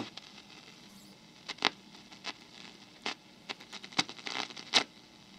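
Faint, scattered clicks and crackles, about a dozen irregular ticks over a few seconds, while the shortwave radio's tuning dial is being turned.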